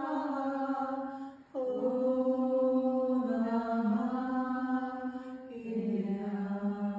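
A woman singing a heart melody solo, in long held notes that slide gently between pitches. She pauses briefly for breath about a second and a half in, then starts a new held phrase.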